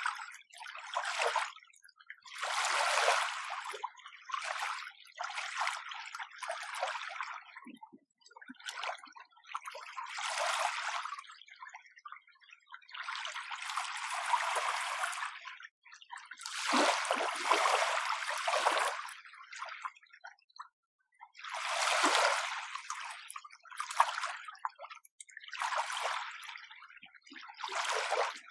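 Small, gentle waves lapping and washing on the shore in an irregular string of short hissing swells, with brief lulls between them.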